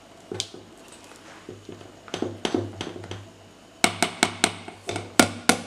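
Silicone spatula stirring and scraping thick cake batter in a stainless steel bowl, then in the last two seconds a quick run of sharp knocks, about four or five a second, as the spatula strikes the metal bowl.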